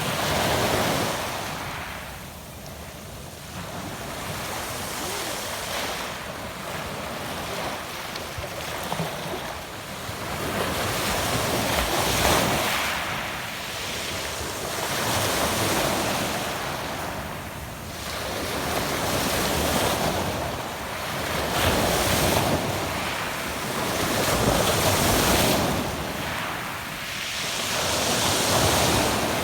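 Adriatic Sea waves washing in and drawing back over a pebble beach, swelling and fading every few seconds.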